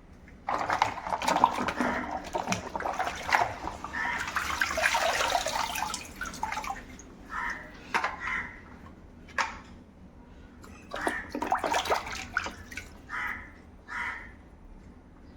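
Water pouring and splashing over plastic toys as they are washed, with sharp knocks of the toys against each other. There is a steady pour for about the first five seconds, then shorter splashes.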